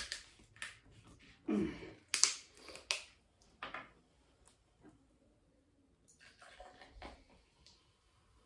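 Plastic bottle of Sprite being twisted open: cap clicks and a short sharp hiss of escaping fizz about two seconds in. Near the end there is a faint fizzing hiss as the soda is poured into a glass.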